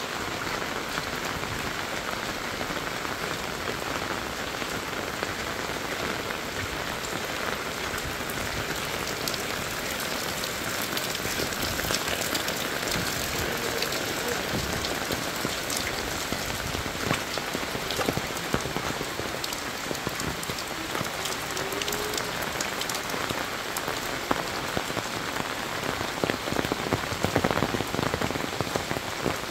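Steady rain falling on roofs, leaves and wet ground, with sharp close drips that come thicker near the end.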